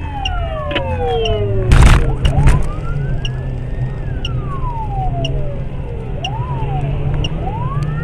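Police siren wailing in slow rising and falling sweeps over the steady drone of a car engine. A loud, short rush of noise breaks in about two seconds in.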